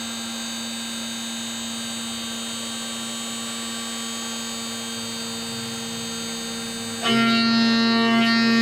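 CNC router spindle running with a steady whine and hum, set to a slow, light cut. About seven seconds in, background music comes in over it.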